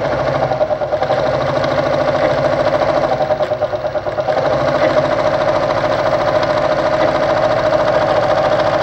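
Brother Pacesetter 605 sewing machine's belt-driven electric motor running steadily at speed under the foot pedal, spinning the bobbin winder to wind thread onto the bobbin.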